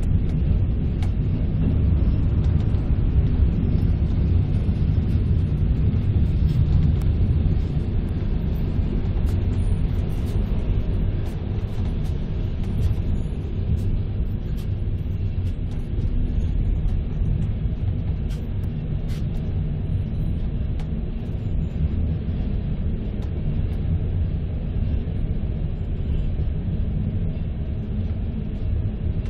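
Steady low rumble of a passenger train running on the rails, heard from inside the carriage through a tunnel. It eases a little after about ten seconds as the train slows into the station.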